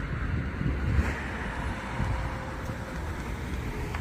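A car going past on the street, the noise of its engine and tyres swelling to a peak about a second in over a low steady rumble.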